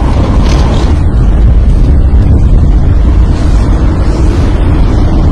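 Wind buffeting the microphone: a loud, steady low rumble that covers everything else.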